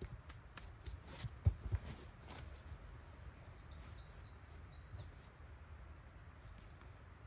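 A few soft thumps and scuffs as a climber sits down onto a foam crash pad, then a bird sings a quick run of about six high chirps midway through.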